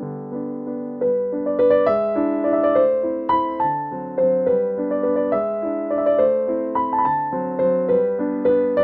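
Piano music: a melody of struck notes over held chords, becoming livelier about a second in.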